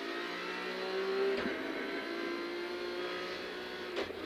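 Rally car engine running under load, heard over the crew's intercom; its pitch steps about a second and a half in, then holds fairly steady and eases slightly. A short click near the end.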